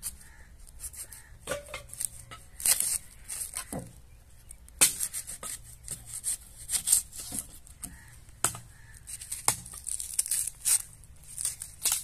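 Kitchen knife cutting and peeling a red onion over a plastic chopping board: irregular crisp cuts and the tearing of the dry skin, one every second or so.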